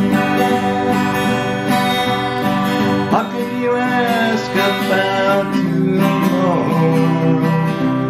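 Twelve-string acoustic guitar strummed steadily in an instrumental passage of a country-folk song.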